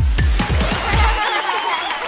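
Electronic children's song with a heavy bass beat that cuts out a little over a second in, leaving wavering higher tones.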